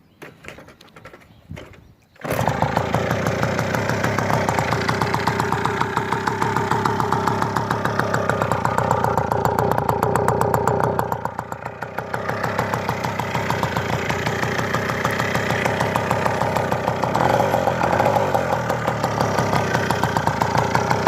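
Puch X30 moped's small two-stroke engine catching about two seconds in after a few faint knocks, then running with a fast, even exhaust pulse. It dips briefly around the middle and picks up again near the end.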